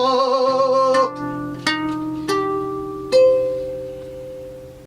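End of a song: the singer holds the last note with vibrato for about a second, then plucked-string chords sound four times, the last one ringing and fading out.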